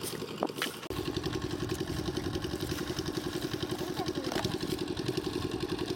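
A couple of light plastic clacks in the first second, then a small engine running steadily with a fast, even chugging that comes in suddenly about a second in.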